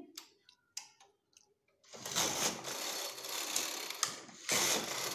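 Punch card knitting machine carriage pushed across the needle bed twice, a noisy mechanical run each time, knitting a row with each pass: the first run starts about two seconds in, the second follows straight after. A few faint clicks come before the first pass.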